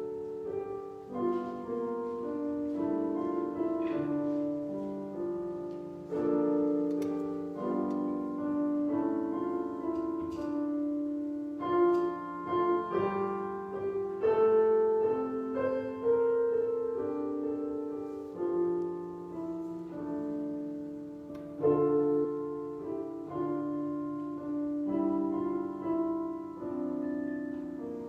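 Solo piano playing a slow, chordal instrumental piece.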